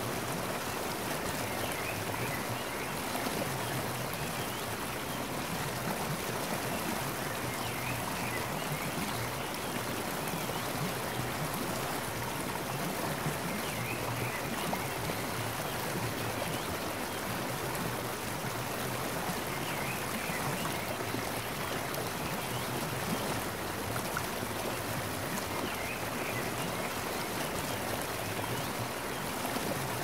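Steady, unbroken rush of flowing water.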